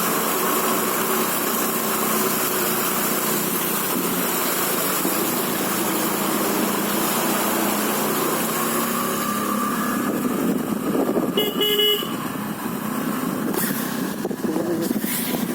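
Motor vehicle engine running steadily under a constant hiss, with a short horn toot about eleven seconds in.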